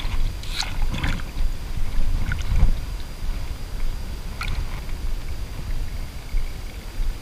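River water lapping and sloshing close to the microphone around a person wading waist-deep, over a steady low rumble, with a few short splashes.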